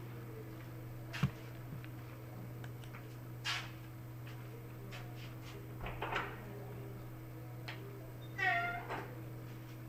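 A short animal call, falling in pitch, near the end, over a steady low hum; a few sharp clicks and knocks come earlier.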